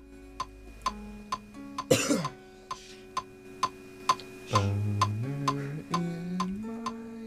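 Electric guitar playing a lead line of held notes and bends over a metronome click that ticks a little over twice a second. There is a sharp, noisy burst about two seconds in and a loud low chord at about four and a half seconds.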